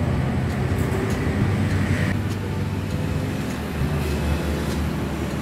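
Wall-mounted oscillating electric fan running, a steady low hum of its motor and blades.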